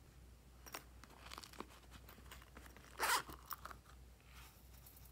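Zipper on a small silicone coin pouch pulled open in one quick rasp about three seconds in, after a few light clicks and rustles of handling.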